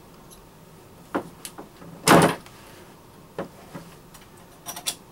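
Short clicks and knocks of metal and plastic parts being handled as a pedal crank arm is fitted onto a kayak pedal drive's spindle. The loudest, a short knock, comes about two seconds in, and a quick cluster of clicks comes near the end.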